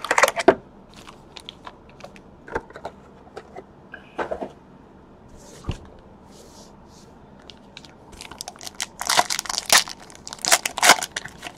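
Light taps and rustles of cardboard and card packs being handled, then a foil trading-card pack torn open and crinkled in two loud spells near the end.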